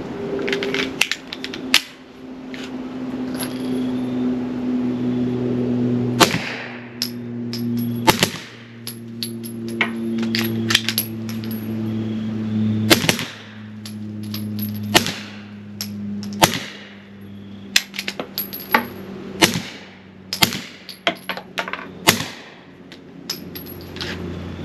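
Suppressed 9mm pistol shots from a Glock 43X fitted with a suppressor in its short configuration: about seven sharp cracks at irregular intervals, each with a ringing tail. Smaller clicks come in between, over a steady low hum.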